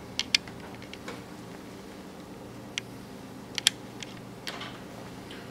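Small screwdriver unscrewing the tiny screws of a laptop screen panel, giving a scattering of sharp metal clicks and ticks: a pair near the start and another pair past the middle, over a low steady hum.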